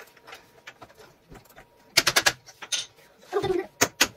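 Sharp plastic clicks and knocks as the panels and round connectors of a plastic cube shoe rack are pressed and tapped together: a quick cluster about two seconds in, and a few single clacks near the end. A short low coo-like hum comes a little after the middle.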